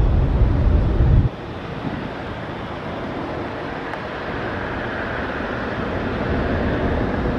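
Distant Boeing 787 jet engines on approach: a steady rushing noise that grows slowly louder. A loud low rumble cuts off suddenly about a second in.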